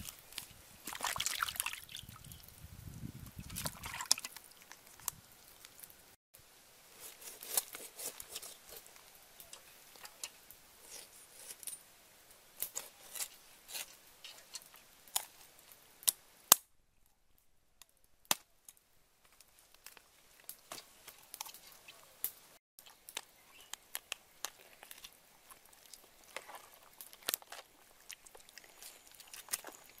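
Water sloshing and dripping as a whole duck is lifted and handled in a pot of water. Then come scattered sharp clicks and light wet crackles of a knife cutting the cooked duck and hands pulling its carcass apart.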